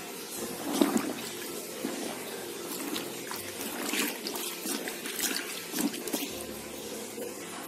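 Wet bedsheet being pushed and squeezed down into a bucket of bleach and water, with irregular sloshing and trickling of the liquid.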